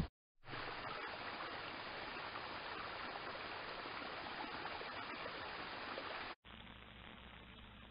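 Steady rush of running water at a garden pond, starting after a brief gap. It cuts off about six seconds in, giving way to a fainter hiss with a low steady hum.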